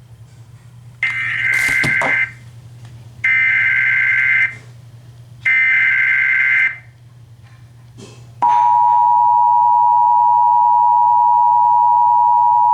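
Emergency Alert System SAME header: three bursts of warbling data tones about a second long each, then the steady single-pitch 1050 Hz National Weather Service alert tone begins about eight seconds in, announcing a flash flood warning. A low steady hum runs underneath.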